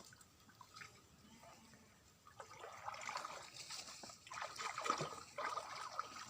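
Shallow stream water sloshing and trickling, faint at first and then a run of irregular small splashes from about two and a half seconds in.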